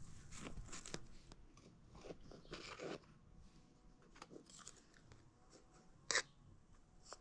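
Fig and walnut cake being eaten: scattered soft crunches and small clicks, with one sharper click about six seconds in.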